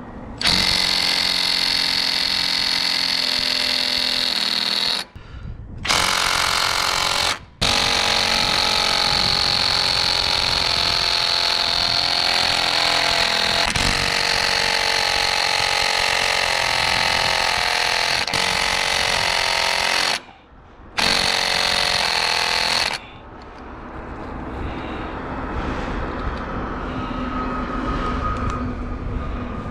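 Handheld power drill running in long bursts at the aluminium boom joint of a Yagi antenna, fixing the joint whose tapping screws had come out. Its pitch shifts under load, and it stops briefly three times. Near the end it gives way to a quieter, uneven sound.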